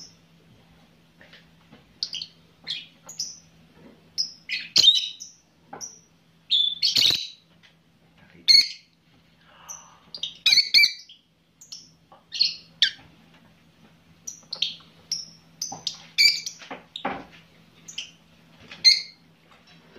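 Lovebirds chirping and squawking in short, sharp, high-pitched calls, coming in irregular bursts, some much louder than others.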